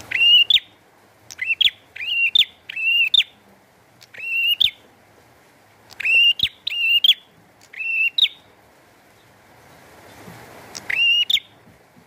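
A caged prenjak calling: about nine loud, clear whistled notes, each sweeping up, holding level, then ending with a quick upward flick. They come singly or in quick pairs, with longer pauses after about four and eight seconds.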